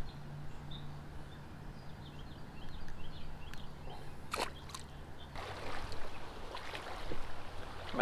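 Small creek's water flowing and trickling, with a few sharp clicks about four and a half seconds in.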